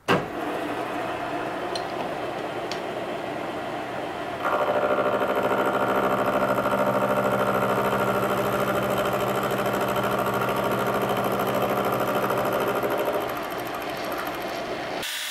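Milling machine running under power feed, taking a half-millimetre cut to mill a hex flat on a round bar. The steady machine running grows louder about four seconds in as the cutting load rises, eases back near the end, and then stops.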